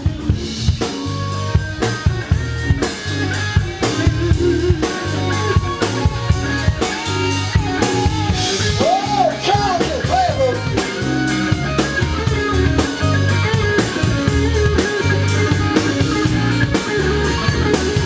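Live blues band playing: electric guitar over bass and a drum kit keeping a steady beat, with a few notes that bend up and down around the middle.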